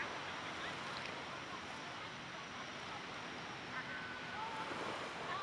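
Steady wash of sea surf, with faint distant voices or calls from about four seconds in.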